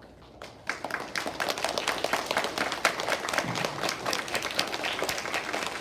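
A room of children clapping together, starting just under a second in and then going on steadily: applause for a whole class once the last of its names has been called.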